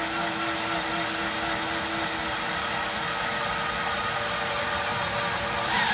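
Cordless drill running steadily under load as a cobalt bit bores a small pilot hole through the steel of an old table saw blade, the bit lubricated. A steady whine made of several fixed tones, the lowest of which drops away about two seconds in.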